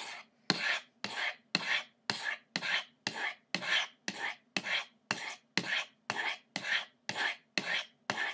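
Knife blade drawn down the medium-grit ceramic rods of a Lansky Crock Stick sharpener, alternating between the two rods. The strokes come in a steady rhythm of about two short scrapes a second.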